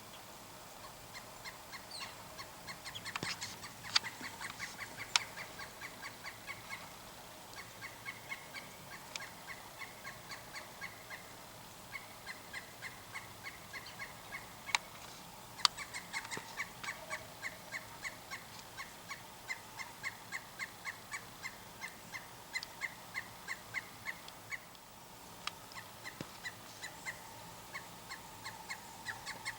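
A bird calling in long, fast runs of short repeated notes, about four or five a second, with a few short pauses between runs. A few sharp clicks stand out, the loudest near 4 and 16 seconds in.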